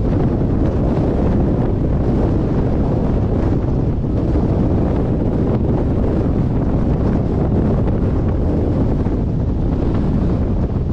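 Strong wind blowing across the microphone, a loud steady rumble with no let-up.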